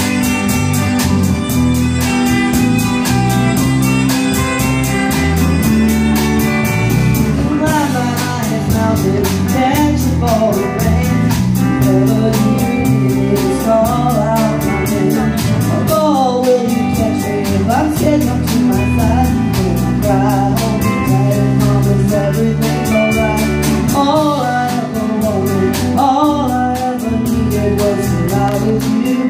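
Live band playing a song: electric violin and guitars over bass and a drum kit keeping a steady beat.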